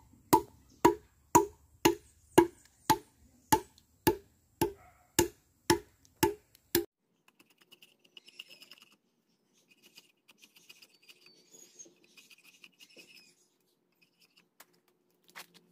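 Machete blade chopping into the handle of a wooden pestle, a steady run of sharp woody knocks about two a second that stops about seven seconds in; after that only faint scraping.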